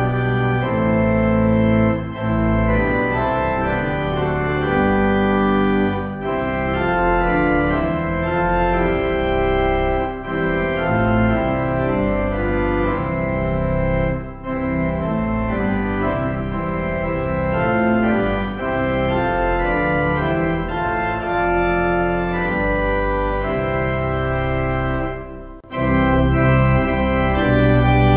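Organ playing a hymn tune in sustained block chords, with a short break between verses near the end before the next verse begins.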